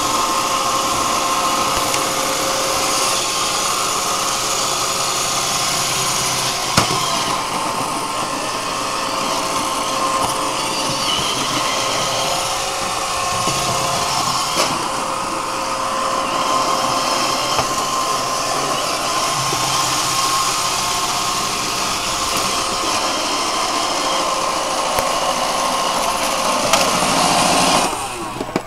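Roomba robot vacuum running, a steady motor and brush whine with airflow noise, with a single knock about seven seconds in. The running sound drops away suddenly near the end.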